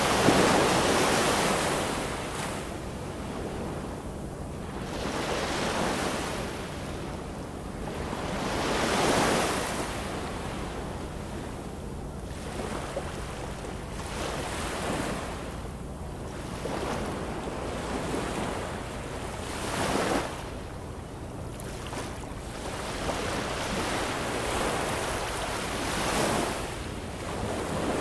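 Ocean waves breaking and washing in, a rushing surge that swells and fades every few seconds, the largest right at the start and about nine seconds in. A faint steady low hum lies underneath.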